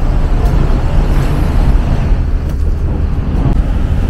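City street traffic: a steady rumble of passing cars and buses.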